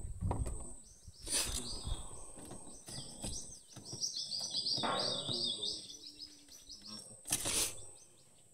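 Small birds chirping in a quick high twittering run through the middle. Two short scrapes cut in, about a second in and near the end.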